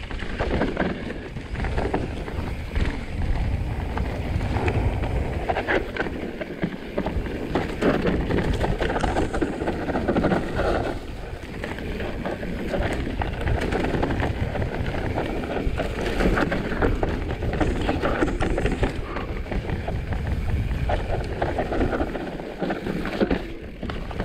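Norco Sight full-suspension mountain bike descending a steep dirt trail at speed: tyres rolling over dirt, roots and leaf litter, with the bike rattling and clattering over bumps. Wind buffets the chest-mounted camera's microphone.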